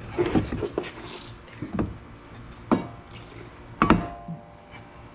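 Hand tools and brake parts clanking and knocking during a brake pad job: about five sharp metal strikes. The loudest, just before four seconds in, rings briefly.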